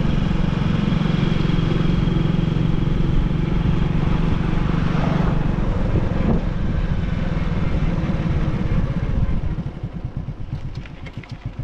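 Vehicle engine running steadily while driving. About nine seconds in it drops quieter into an even, quick pulsing.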